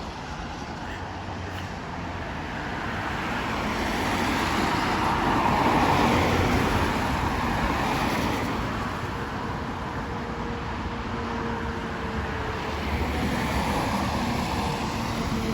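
Volvo B7TL double-decker bus's engine running under load, its sound swelling to a peak and easing off, then building again, with a hoover-like whine that slowly falls in pitch near the end.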